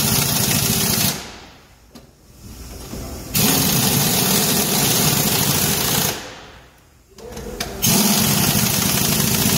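Pneumatic impact wrench rattling wheel nuts onto the dual wheels of a semi-trailer in three runs of a few seconds each: the first stops about a second in, the second starts a little after three seconds, and the third starts near eight seconds.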